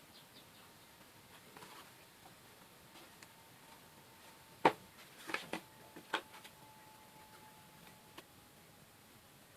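A few scattered light taps and clicks in a quiet small room, the loudest about halfway through and followed by a quick cluster of several more, then a single one near the end.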